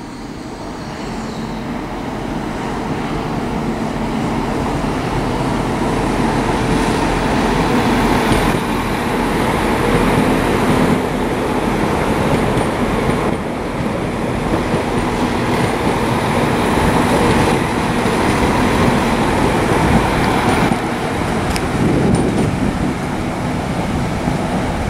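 Northern passenger multiple-unit train running along the track past the platform: a steady rumble with a low hum, growing louder over the first eight seconds or so, then holding steady.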